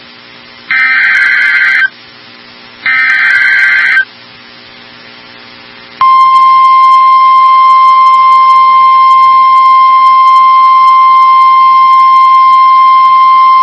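Emergency Alert System SAME data header: two short, harsh, warbling digital bursts about a second apart, the last of the three header bursts. After a pause of about two seconds, the single steady 1050 Hz National Weather Service warning alarm tone starts about six seconds in and holds.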